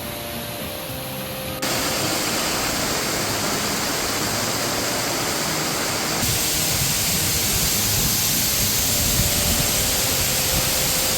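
Steady rush of a waterfall, jumping louder about a second and a half in and again about six seconds in.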